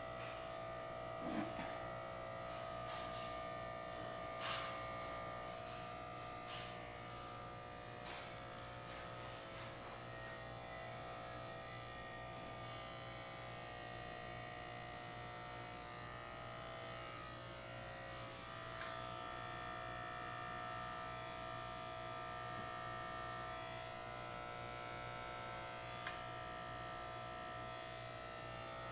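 Corded electric hair clippers running with a steady buzz as they are passed over a short-cropped scalp, shaving it close. A few brief knocks, the loudest about a second in.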